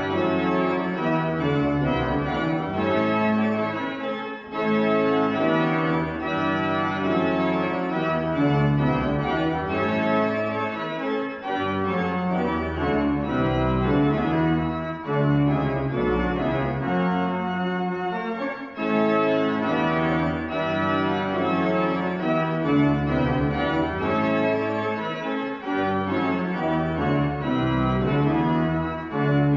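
Organ music: slow, sustained chords that change every second or two, with no singing.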